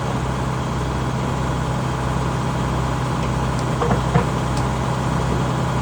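An engine idling steadily with a low, even hum, and a single short knock about four seconds in.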